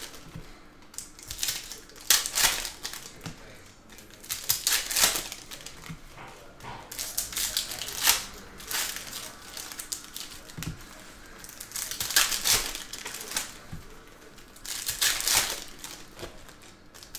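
Trading-card pack wrappers crinkling and cards being shuffled and flicked by hand, in irregular bursts of crisp rustling every few seconds.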